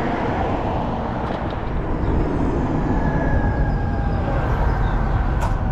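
Steady low rumble of a car driving along city streets: road and engine noise. A faint high tone comes in about halfway through, and there is a short click near the end.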